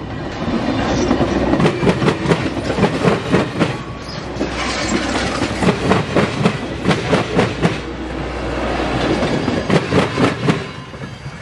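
Steel wheels of passing passenger cars clicking in quick clusters as each wheel set rolls over the track, over a steady rumble. The sound falls away near the end as the last car passes.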